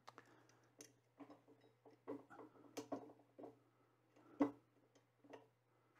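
Faint, scattered clicks and taps of small parts being handled and fitted against the all-metal frame of a Creality CR-X 3D printer's gantry, with one sharper knock a little past the middle. A steady low hum runs underneath.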